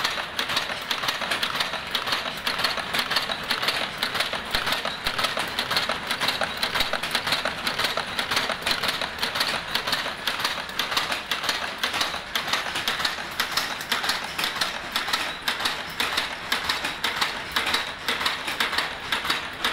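Automatic wire-forming machine running at speed while it bends wire into small oval capsule-shaped links, making a fast, even metallic clatter of repeated strokes.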